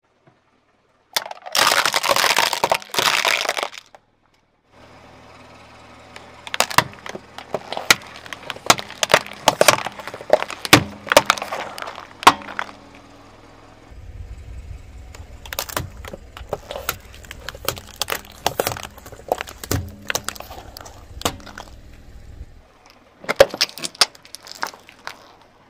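Hard clear plastic toy water pistols cracking and crunching under a car tyre: one loud dense crunch near the start, then many separate sharp snaps and cracks over a low steady hum. Near the end a plastic ice-cream tub bursts under the tyre with a few sharp cracks.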